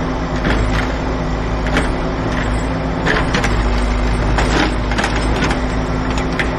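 Road roller's engine running steadily as its steel drum rolls forward over fresh asphalt, with a deep rumble and scattered crackling and crunching from the material under the drum.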